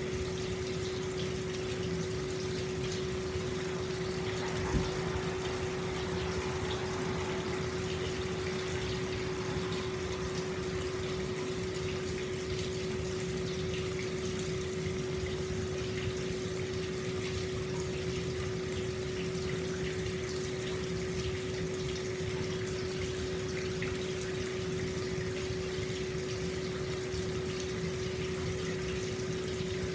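Hot spring water pouring steadily into an open-air bath, with a constant low hum under the splashing.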